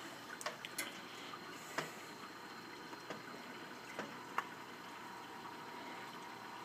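Aquarium water churning steadily, moved by a VorTech MP40w propeller wave pump, with about six sharp light clicks in the first half and a faint steady tone coming in about halfway.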